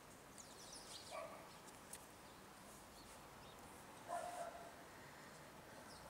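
Two faint, short dog barks, about a second in and again a little after four seconds, the second one louder, over faint high chirps of small birds just before the first.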